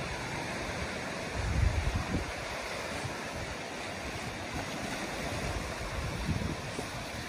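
Sea surf washing on a sandy beach, a steady rush, with wind buffeting the microphone in gusts, most strongly about a second and a half in.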